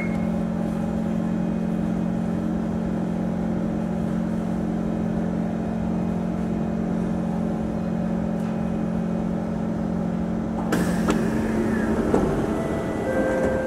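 Singapore MRT train humming steadily as it draws to a stop at the platform. About eleven seconds in, the doors slide open with a sudden burst of noise and some clatter.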